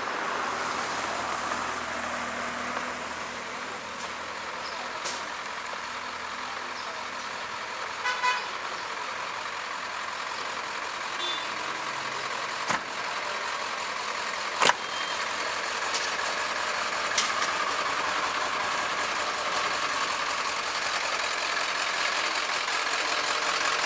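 Steady outdoor street noise, with a few sharp clicks or knocks scattered through it and one short, high-pitched double toot about a third of the way in.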